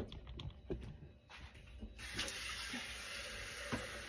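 A sharp knock at the start and a few light clicks and clatters, then a kitchen tap turned on about two seconds in, running water steadily into a stainless-steel cooking pot until it stops near the end.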